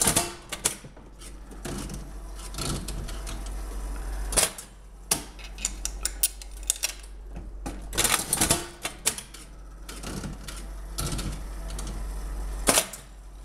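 All-mechanical Mills slot machine being played: rapid rattling, ticking clicks of the reel mechanism, with a heavy clunk about every four seconds as the handle is pulled and the reels spin and stop.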